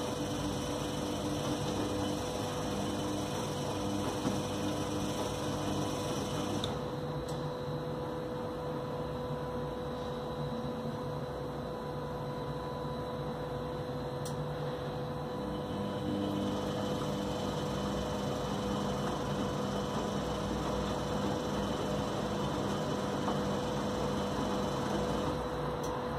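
Electrolux EWF984 front-loading washing machine running its wash, the drum turning wet laundry with a steady motor hum. The hum changes tone about a quarter of the way in and again a little past halfway.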